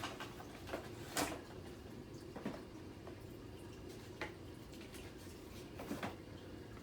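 A model-plane box and its packaging being opened by hand: a few scattered light clicks and knocks with soft handling noise between them.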